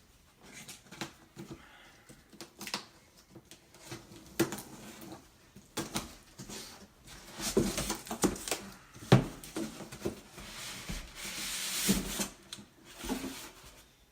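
Unpacking a cardboard speaker box: scattered knocks, scrapes and rubbing of cardboard and packing material, with longer rustling stretches in the second half.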